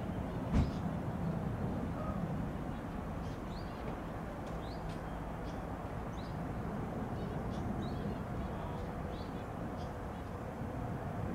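Distant, steady rumble of an Airbus A380's four jet engines climbing away after takeoff. Small birds chirp in short high notes throughout, and there is a single knock about half a second in.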